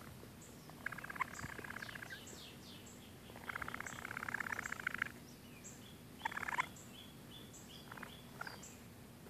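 Baby raccoon chittering in rapid trilling churrs, in three bouts: one about a second in, a longer one in the middle and a short one after six seconds. Short high bird chirps repeat faintly in the background.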